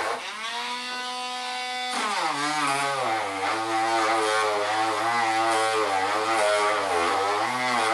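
Dremel rotary tool with a sanding drum spinning up to a steady whine. About two seconds in its pitch drops sharply as the drum is pressed into the plastic ribs of a case, then wavers up and down under load as it sands.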